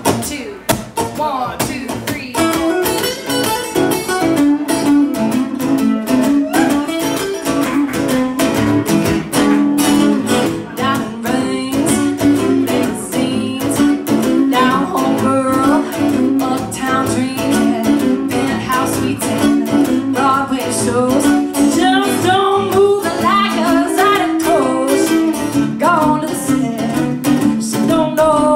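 Two acoustic guitars playing a Cajun-style blues tune live, strummed chords under picked notes, some of them bent.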